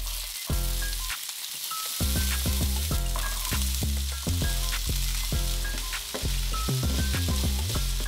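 Diced green bell pepper, onion and ham sizzling in a hot nonstick frying pan, stirred with a wooden spatula near the end. Background music with a steady bass beat plays throughout.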